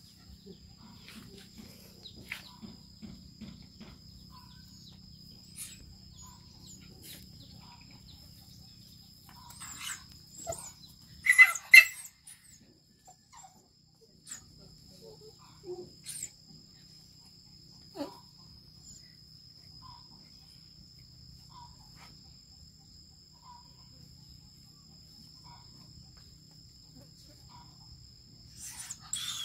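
A monkey and a white puppy play-wrestling on dirt: faint scuffling, with one short, sharp animal cry about eleven seconds in. A steady high-pitched tone runs underneath.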